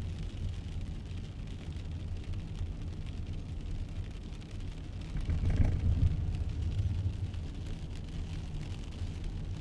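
Rain recorded outdoors on a phone: a steady low rumble with a faint patter of drops, swelling louder for about two seconds a little past the middle.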